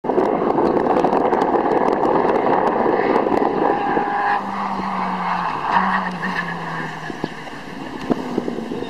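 Single-seat formula race car engine running hard as the car drives around the coned course. About halfway in a steady engine note appears and then steps down in pitch, and the sound fades toward the end.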